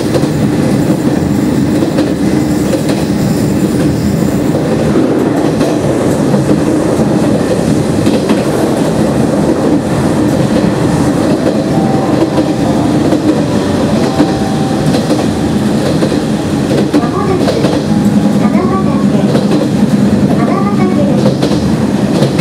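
Cabin running sound of a resistance-controlled Nishitetsu 5000 series electric train at speed: a steady low hum from the traction motors under the noise of the wheels on the rails.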